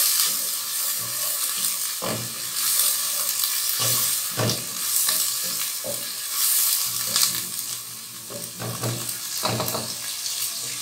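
Chopped onion, tomato and ginger-garlic paste sizzling steadily in hot oil in a pot, stirred with a wooden spatula that scrapes and knocks against the pot several times.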